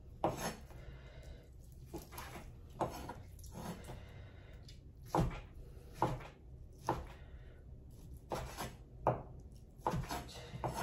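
Kitchen knife cutting raw meat on a wooden cutting board: a dozen or so sharp knocks of the blade reaching the board, spaced irregularly about a second apart.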